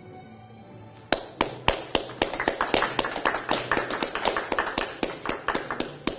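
A few people clapping by hand for a graduate. The sharp, uneven claps start suddenly about a second in and stop just before the end.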